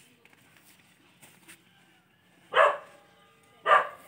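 A dog barking twice, the barks about a second apart and starting some two and a half seconds in.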